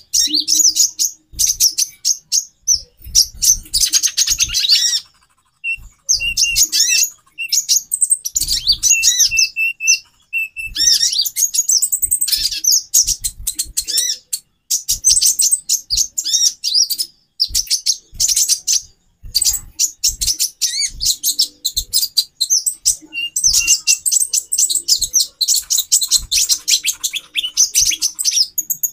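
Several female konin (kolibri ninja) birds calling at once in a busy, almost unbroken run of rapid high-pitched chirps and twitters. Around a quarter of the way in, a steady repeated lower note runs for a few seconds under the chatter. It is the kind of female chatter used as a lure to bring a male konin into breeding condition and make him sing.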